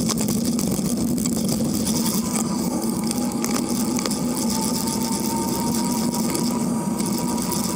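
Steady rolling noise of a bicycle on the road, tyre rumble mixed with wind on a low-mounted microphone beside the crank. A faint steady whine comes in about two seconds in.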